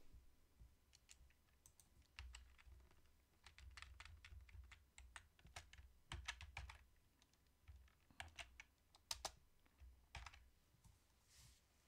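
Faint clicking of a computer keyboard and mouse, sharp irregular clicks in clusters, busiest through the middle.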